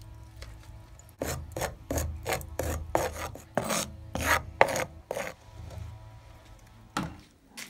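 Wooden stirrer scraping dry spice powder around a clay pan, about a dozen quick rasping strokes, roughly three a second, then a pause and one more stroke near the end: the powder being dry-roasted.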